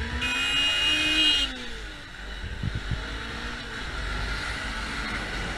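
Motorcycle engine running under wind rush, its pitch rising and then easing back over the first two seconds. A high steady tone, the loudest sound, lasts about a second near the start.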